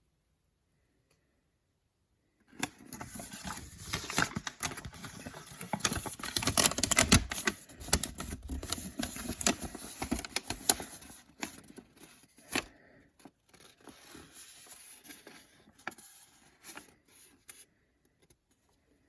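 Toy packaging being torn open and crinkled, starting sharply about two and a half seconds in. The crackling is densest for the next several seconds, then thins to scattered rustles and clicks and stops a little before the end.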